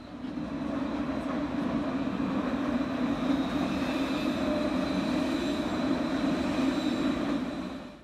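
A vehicle running steadily with a strong low hum and a few faint steady tones above it; the sound starts suddenly and stops suddenly just before the end.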